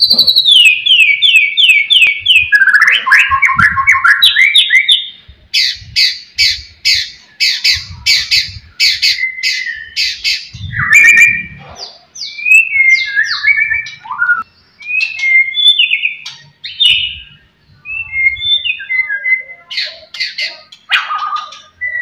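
White-rumped shama singing loudly: fast runs of repeated sweeping notes and trills for the first few seconds, then a run of short sharp notes, about two to three a second, then looser, varied whistles and harsh chattering phrases.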